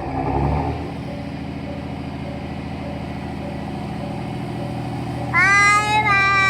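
A train's low engine rumble runs steadily, then a loud horn sounds about five and a half seconds in, a note that slides up and holds steady for about a second and a half.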